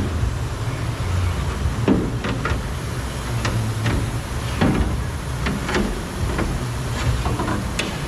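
The front door glass of a 2017 Ram 2500 being worked out of the door shell by hand: a string of irregular sharp knocks and clicks as the glass and hands strike the door metal. A steady low rumble runs underneath.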